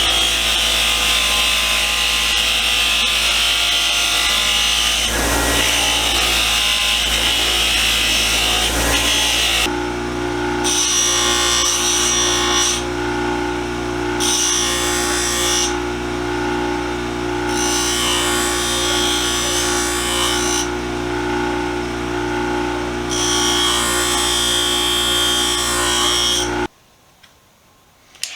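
Small power tool running on the screwdriver's metal, cleaning it up. A steady motor hum runs throughout, with a harsher scratching noise that comes and goes about five times as the tool bites on the work. The sound changes character about ten seconds in and cuts off shortly before the end.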